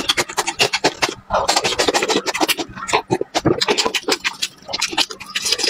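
Close-miked chewing of a crunchy raw green chili pepper: a quick, irregular run of crisp crunches and wet mouth clicks.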